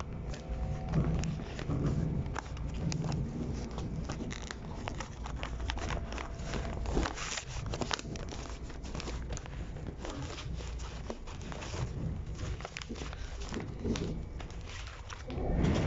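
Irregular crackling and scraping of fabric rubbing on the phone's microphone, over the steady low rumble of a Long Island Rail Road train car in motion.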